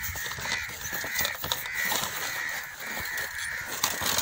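A bird calling over and over, short calls that rise and fall about twice a second, with cardboard packaging rustling and being handled as a ring light box is opened.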